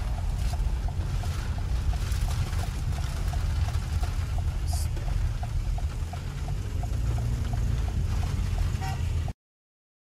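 Steady low rumble under a wash of rain and water noise, with a faint regular ticking about three or four times a second. It cuts off abruptly near the end.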